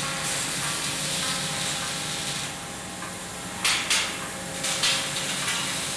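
Steady hiss at a motorcycle-frame welding jig that fades about two and a half seconds in, followed by four sharp metal clanks as parts are handled in the jig.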